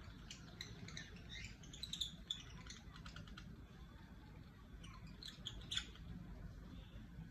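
Cockatiels chirping faintly in short, scattered chirps, busiest about two seconds in and again between five and six seconds in.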